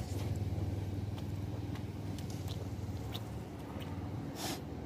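A low steady rumble with faint, scattered small clicks and smacks of people eating by hand, and a brief soft rustle about four and a half seconds in.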